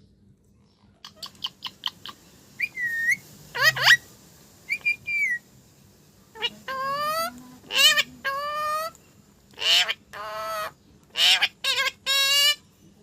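Indian ringneck parakeet vocalizing. After a quiet first second come short clicks and chirps, then two whistled notes and a quick upward whistle. From about halfway through it gives a series of wavering, buzzy calls.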